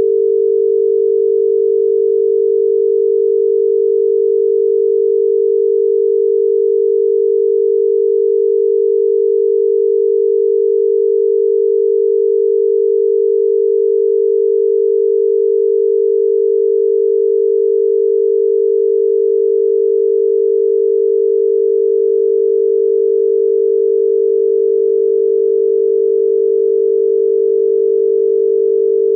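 Australian telephone dial tone: a continuous 425 Hz tone amplitude-modulated at 25 Hz, steady and unbroken. It signals that the exchange is ready to receive a dialled number.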